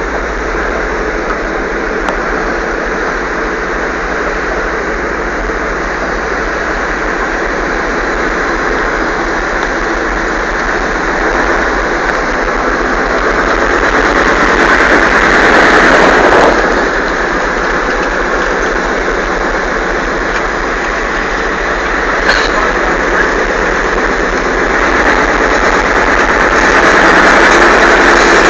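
The Sexton self-propelled gun's Continental R975 radial petrol engine runs steadily under way, heard from on board. It grows louder to a peak about halfway through, drops off suddenly, and rises again near the end. There is one sharp click about two-thirds of the way in.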